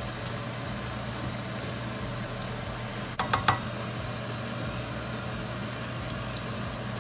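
Kitchen range hood fan running steadily with a low hum, over oil bubbling in a pot of frying chicken wings. About three seconds in, metal tongs clink quickly about three times.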